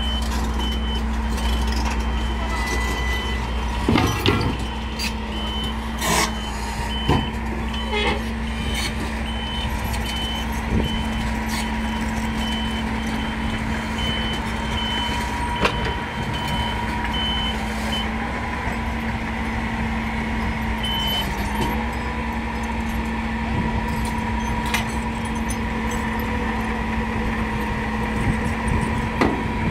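Atlas Copco crawler rock-drill rig running steadily, with its motion alarm sounding a steady run of short beeps that stops about eighteen seconds in. A few sharp knocks cut through.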